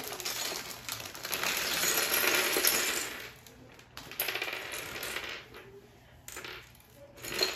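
Small plastic Lego pieces tipped out of a plastic bag, clattering and scattering across a wooden floor, with the bag crinkling, for about three seconds. Then scattered clicks as the pieces are moved about, and a short louder burst of noise near the end.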